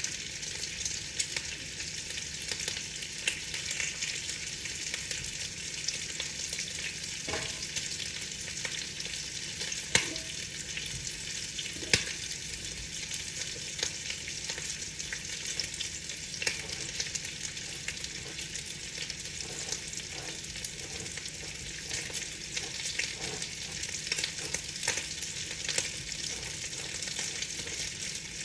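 Rain pattering on a window pane: a steady hiss of many tiny drop taps, with two louder drop hits about two seconds apart near the middle.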